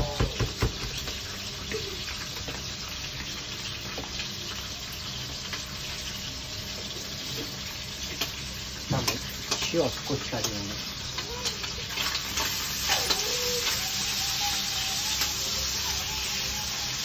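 Bacon frying in olive oil in a pan, a steady sizzle. In the first second there are quick clinks of a utensil beating egg and cheese in a bowl, and there are a few more utensil knocks about nine to ten seconds in.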